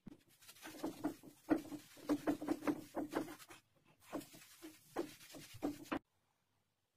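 Damp sponge scrubbing across small mosaic tiles, a quick run of rubbing strokes about three or four a second, with a short pause near the middle; it stops suddenly about a second before the end. These are the wipes that clean grout off the mosaic face.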